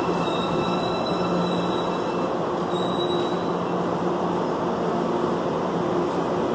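Electric Salvador Metro train pulling in along the far track of an underground station: a steady rumble with a faint steady whine.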